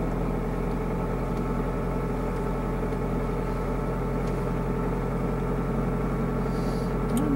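Car engine running steadily, heard from inside the cabin, with no revving.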